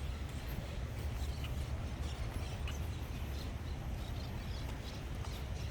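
Steady low outdoor rumble with scattered faint clicks and ticks.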